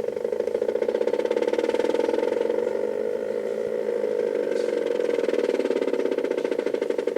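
Stepper motor driving an HO-scale model railway turntable, running at speed with a steady whining hum and a fast, even pulsing from its steps.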